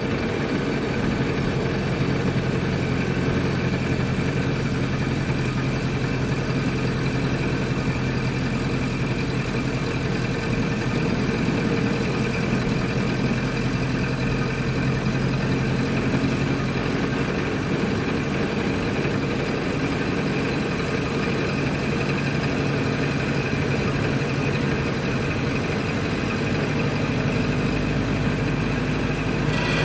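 Ford Model A's four-cylinder flathead engine running steadily while the car drives, with a slight change in its low note near the end.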